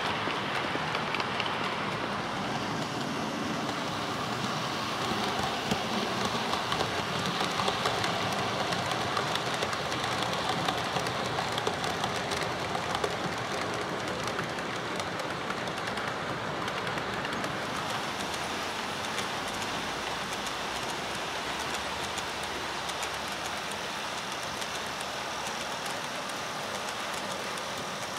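OO gauge model trains running on the layout's track: a steady rattle and clicking of small metal wheels over rail joints, with a faint steady motor whine. It is louder and busier in the first half.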